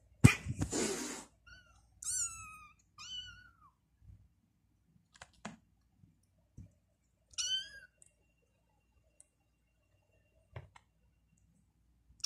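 Kittens mewing: three short, high, thin mews, about two, three and seven and a half seconds in. Just after the start comes a loud brief rustle of fur brushing against the microphone, the loudest sound, and a few faint clicks follow.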